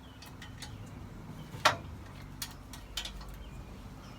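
Scattered sharp clicks and taps of hand tools and metal exhaust parts being handled, over a low steady hum. The loudest click comes a bit under two seconds in.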